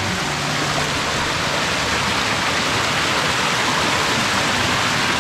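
Steady rush of water flowing in a hot-spring creek.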